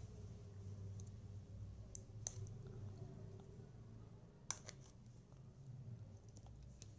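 Faint scattered clicks of a small screwdriver tip prying and tapping at the plastic clips in a portable Bluetooth speaker's end cap, the sharpest about four and a half seconds in.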